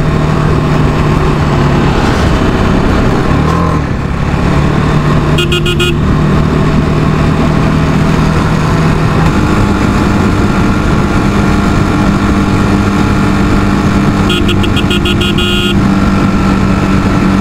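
Motorcycle engine running steadily while riding through heavy traffic, its note stepping up a notch about nine seconds in and then holding. A horn beeps in rapid short pulses twice: briefly about five seconds in and for over a second near the end.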